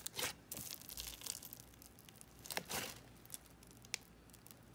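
A hand pressing and poking into a tub of thick, bubbly slime, giving a few brief, faint crackling squishes, the loudest a little past halfway.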